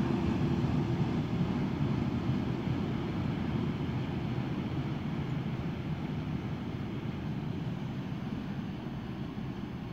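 Freight train of tank wagons rolling away along the track: a low, steady rumble of wheels on rail that slowly fades.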